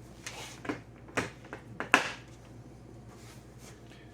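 A few sharp clicks and knocks from the tool set being handled, the loudest about two seconds in, then only faint ticks over a steady low hum.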